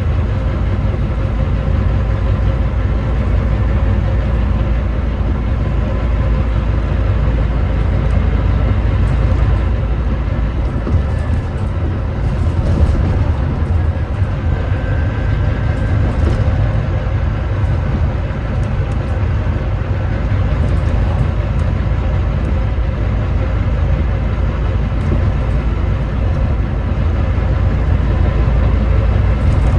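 Volvo D9B 9.3-litre diesel engine of a Volvo B9TL double-decker bus running steadily, heard from on board, with a few light rattles. The uploader labels the engine as misfiring and thrashy.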